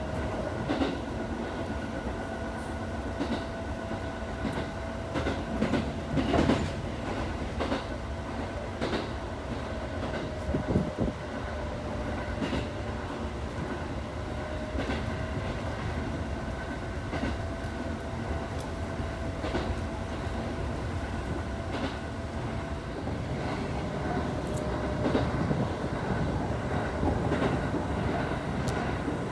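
A Chichibu Railway electric express train running along the track, heard from inside at the front of the car: steady running noise with a constant whine, and irregular clacks of the wheels over rail joints.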